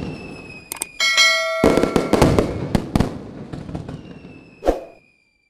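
Intro sound effects of fireworks: sharp cracks and bangs with whistles falling slowly in pitch, and a bell chime ringing about a second in. The sound drops out briefly near the end.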